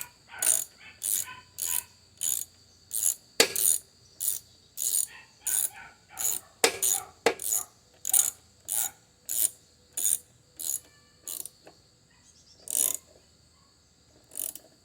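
Socket ratchet clicking in rapid back-and-forth strokes, about two a second, as the 10 mm carburetor mounting bolts on a Honda mower engine are tightened down. The strokes stop about eleven seconds in, and two single strokes follow near the end.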